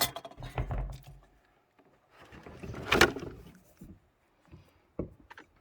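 A PEX clamp crimping tool being handled and squeezed onto a pipe clamp, with a low rumble early on, a louder rasping noise about three seconds in, and a few sharp clicks near the end.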